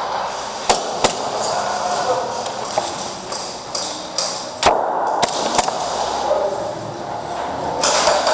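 Airsoft gas blowback pistol shots: five sharp cracks, two about a second in and three more around the middle.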